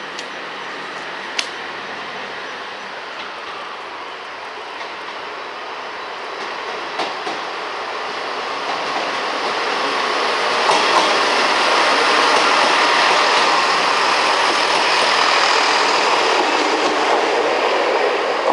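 A train running past on the rails, its rumble growing louder about halfway through and then holding steady, with a few sharp clicks of wheels over rail joints.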